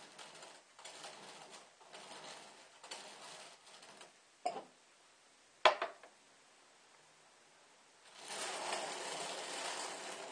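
Lidded glass jars handled and set down on a glass mirror base: rustling and shuffling, a light click about four and a half seconds in, and a sharp glass knock just before six seconds, the loudest sound. A longer stretch of rustling handling noise follows near the end.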